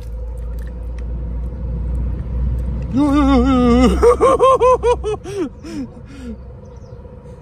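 A low steady rumble, then about three seconds in a man lets out a startled drawn-out cry and breaks into laughter that trails off, as his hand in the muddy water touches the hidden creature.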